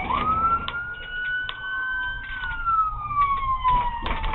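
Police car siren wailing: the pitch climbs quickly at the start, peaks a little past two seconds in, then slides slowly down toward the end.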